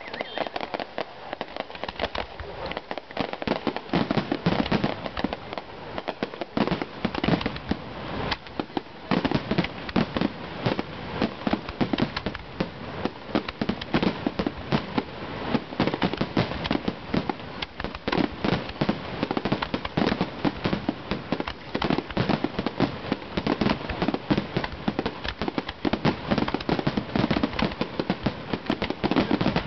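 Rapid-fire barrage of aerial firework shells: dense, overlapping bangs and crackling with no pause, growing denser about nine seconds in.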